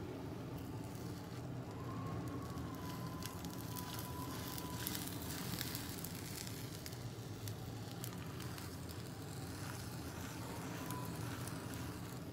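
Gas burner flame running under a rectangular tamagoyaki pan, with egg sizzling and crackling in the pan as the roll is turned. The crackling is busiest in the middle of the stretch.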